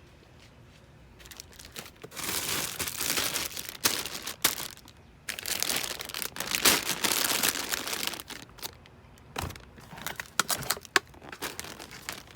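Plastic shopping bags rustling and crinkling as they are handled, in two long stretches, followed by scattered clicks and knocks.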